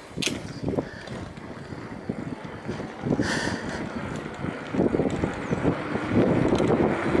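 Bicycle rolling over rough asphalt, with wind buffeting the microphone and a stream of small knocks and rattles from the bike. It grows louder about five seconds in.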